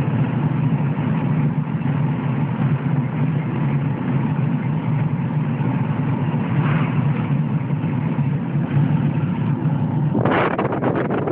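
Steady engine and road noise inside a moving car's cabin, a low hum under an even rush. About ten seconds in it turns to rough, gusty buffeting: wind on the microphone.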